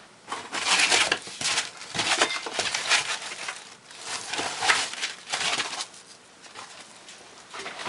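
Packing material crinkling and rustling in irregular bursts as a shipped package is unpacked by hand, dying down to quieter handling after about six seconds.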